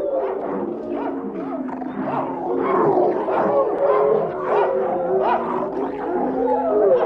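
A pack of wild canids howling and yipping in chorus: many voices overlap, with long wavering howls under short rising yelps.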